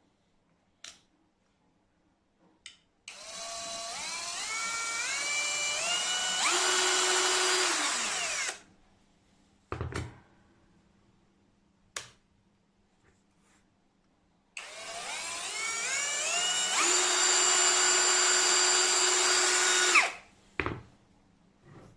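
AKZWOXRO 21V cordless drill driver run up twice with no load. Each time the motor whine climbs in steps as the trigger is squeezed, holds steady at full speed for a few seconds, then stops when released. A few short clicks come between the two runs.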